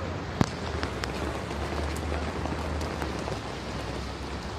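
Heavy rain falling steadily, with single drops striking close by as sharp ticks, the loudest about half a second in.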